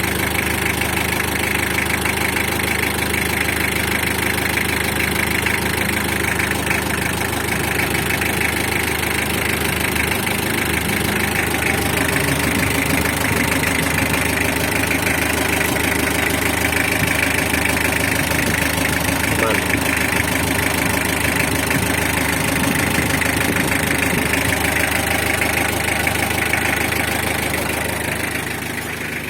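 Mitsubishi L300 engine idling steadily, freshly rebuilt after an engine overhaul.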